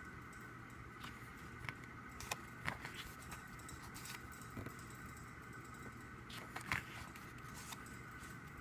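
Faint handling of a K-pop album package and its photo book: scattered light taps, clicks and paper rustles, the clearest a little before 3 s in and near 7 s in.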